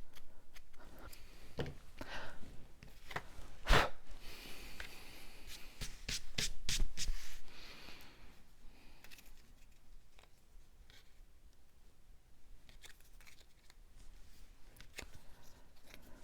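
Paper-crafting supplies being handled on a work surface: rustling and rubbing with scattered sharp clicks, the sharpest about four seconds in and a louder cluster of rustles and clicks around six to seven seconds, then only small quiet clicks.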